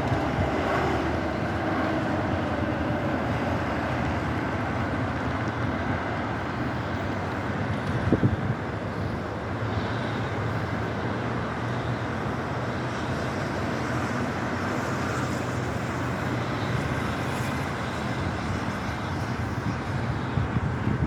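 Steady road traffic noise of cars speeding past on an adjacent road, mixed with strong wind blowing across the microphone. A brief thump comes about eight seconds in.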